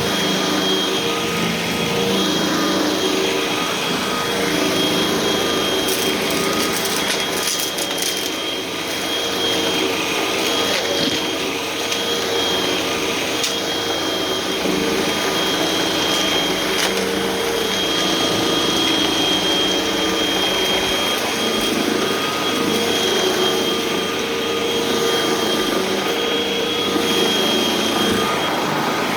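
Hoover vacuum cleaner running steadily with its brushroll engaged: a continuous motor rush with a steady high whine. A few short clicks and crackles, typical of debris being picked up, come between about six and nine seconds in.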